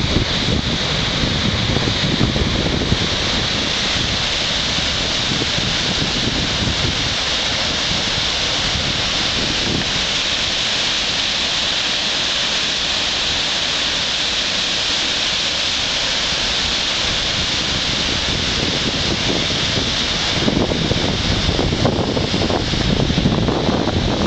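River waterfall in high, muddy flood flow pouring over rock ledges: a loud, steady rush of falling water. A deeper rumble is stronger in the first couple of seconds and again in the last few.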